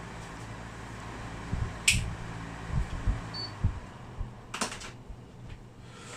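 Steady low room hum with scattered low thumps and handling noise of a person moving about a small room, a sharp click about two seconds in, a brief high beep, and a short rattle of clicks a little later.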